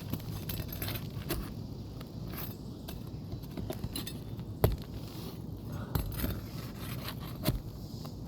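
Scraping and scattered sharp clicks of a metal roofing tool worked against asphalt shingles as they are loosened for removal, with a few louder knocks.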